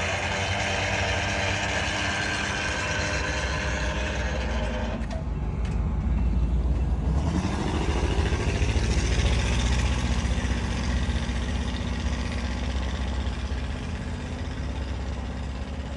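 SunRail commuter train's diesel locomotive running. A steady high ringing drops away about four seconds in, then the engine note rises over a couple of seconds and a deep rumble swells before slowly dying down.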